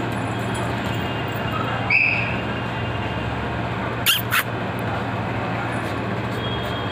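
A steady low hum and hiss, with one short high-pitched squeak about two seconds in and two sharp, very high squeaks in quick succession about four seconds in.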